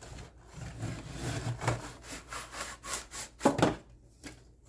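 Rubbing and scraping of objects being handled and moved on a surface, uneven and scratchy. A sharper, louder knock comes about three and a half seconds in.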